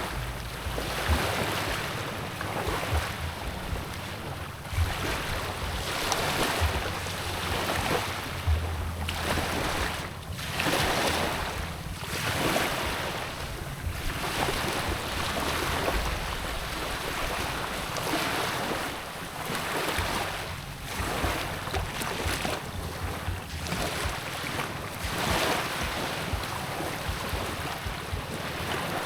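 Sea waves washing in repeated surges every second or two, with wind buffeting the microphone and a steady low hum underneath.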